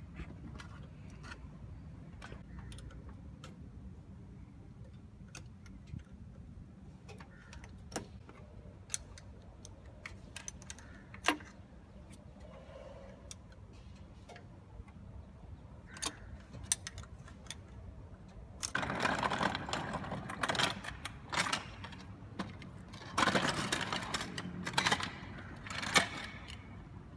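Hand tools clicking and clinking against metal fittings as the vacuum pump hose and coupling of a Cessna 172 engine are worked loose, over a steady low hum. Near the end come two louder stretches of rustling and scraping.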